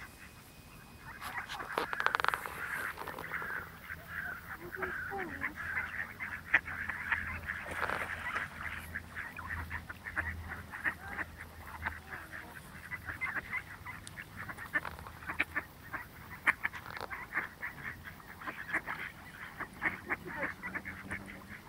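A flock of ducks calling in a dense, continuous chatter of short calls, beginning about a second in.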